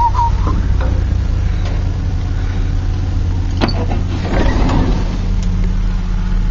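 Large engine running steadily at idle, a low even hum. About three and a half seconds in there is a sharp knock, followed by a second or so of rattling.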